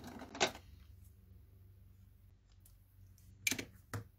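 Roll of double-sided tape being handled: a short rasp near the start as tape comes off the roll, then two quick sharp taps about half a second apart near the end.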